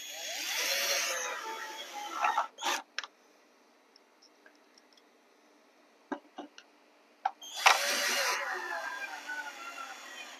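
Cordless drill driving screws through an iron pipe flange into a soft wooden shelf board: two runs of the motor, each about two to three seconds, one at the start and one from about three-quarters of the way in, with a few short clicks and knocks between them.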